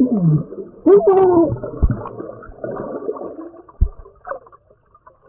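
Muffled underwater sound from a camera submerged in a swimming pool just after a cannonball: warbling, gliding pitched sounds and water gurgling, with two low thumps. It dies away almost to silence near the end.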